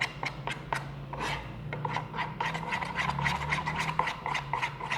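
A spoon scraping and stirring thick gel-glue slime in a plastic pot, irregular scrapes and sticky clicks as the mixture starts to thicken.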